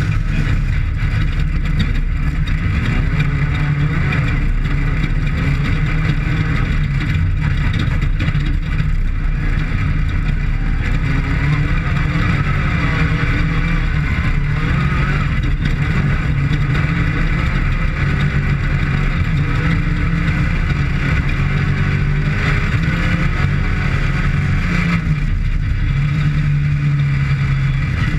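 Off-road desert race vehicle's engine running hard at a fairly steady speed, with loud, continuous rumble and rattle from the run over rough terrain.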